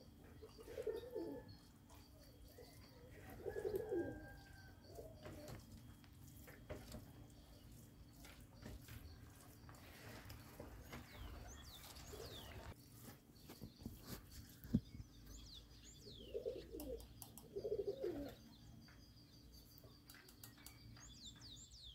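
Doves cooing in short low bouts near the start and again late on, with small birds chirping faintly. In the middle, a spatula stirring and scraping rice in a bowl, with one sharp click.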